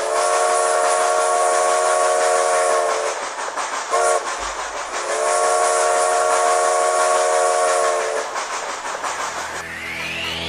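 Steam locomotive whistle sounding a chord over a steady hiss: a long blast, a short toot, then another long blast. A rising sweep comes in near the end.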